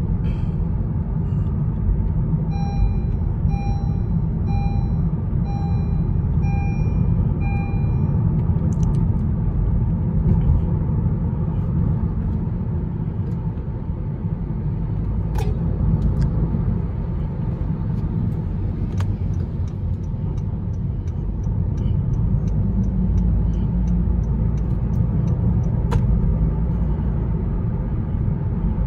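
Steady low road and engine rumble heard from inside the cabin of a 2018 Honda HR-V with CVT transmission while driving. A few seconds in, an electronic chime beeps about eight times at an even pace, and past the middle there is faint ticking about twice a second for several seconds.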